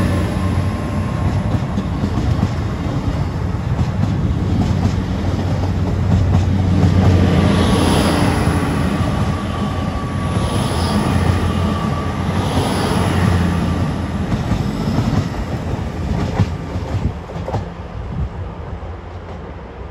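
GWR Hitachi Intercity Express Train carriages rolling past close by: a steady rumble of wheels on rail, with faint tones over it. Near the end it drops to a quieter, more distant train approaching.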